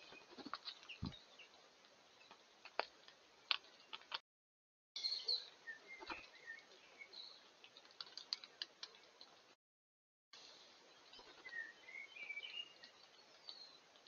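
Small wild birds chirping and calling in short repeated phrases, faintly, with scattered sharp clicks. The sound drops out into dead silence twice for under a second, and a low thump comes about a second after each restart.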